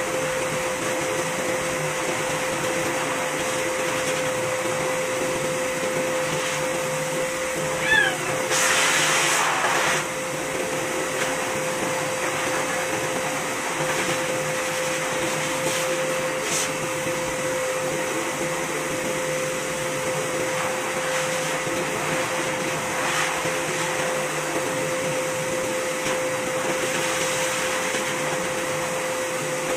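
Pet grooming vacuum with a brush head on its hose, running steadily with a constant hum while it deSheds a cat's coat. About eight seconds in there is a short rising squeak, then a louder rush of air for about two seconds.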